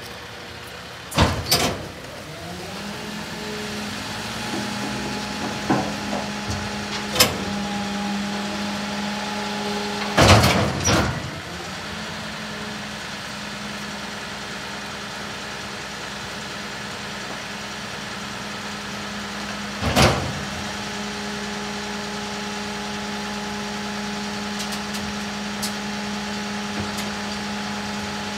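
Rear-loader garbage truck cycling its hydraulic packer: the engine comes up to a steady raised drone about two seconds in and holds it while the packer blade works. Sharp metal clanks and bangs come twice about a second in, then around seven seconds, loudest around ten seconds, and once more around twenty seconds.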